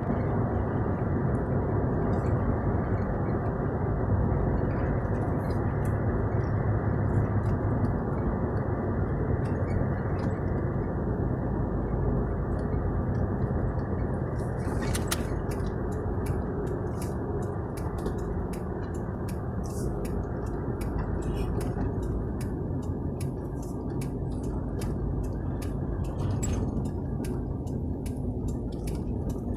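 Steady vehicle engine and road noise. About halfway through, a regular clicking of roughly two ticks a second joins it and continues.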